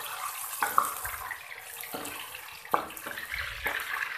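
Chicken pieces sizzling as they fry in hot oil in a metal karahi, stirred with a wooden spoon that knocks against the pan several times.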